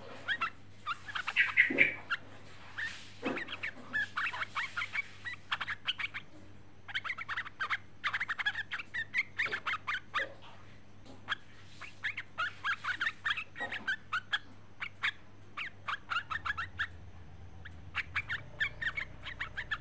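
Yellow-vented bulbul (trucukan) calling: quick, chattering runs of short notes in bursts with brief pauses between. It is a female's call to a male.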